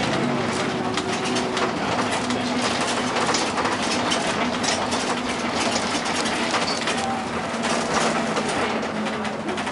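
Inside a bus driving along: a steady engine drone with a low hum, and frequent irregular rattles and clicks from the cabin.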